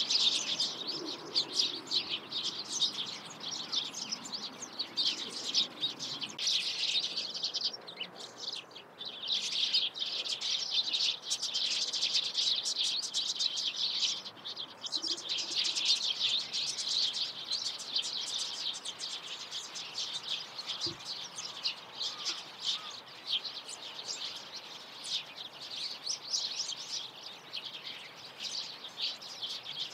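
Small songbirds chirping busily, many short high calls overlapping almost without a break, easing off briefly about a quarter of the way in and growing sparser near the end.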